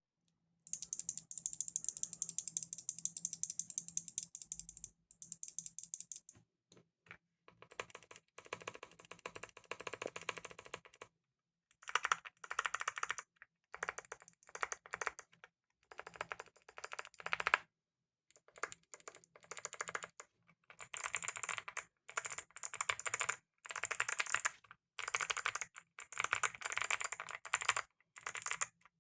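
Fast typing on a Leobog HI75 mechanical keyboard with lubed Kailh Box Summer clicky switches, a dense run of crisp clicks in bursts of a second or a few seconds with short pauses between them.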